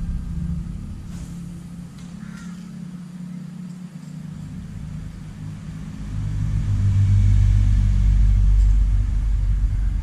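Low rumble of a motor vehicle crossing the bridge overhead, fading a few seconds in, then swelling loud from about six seconds in.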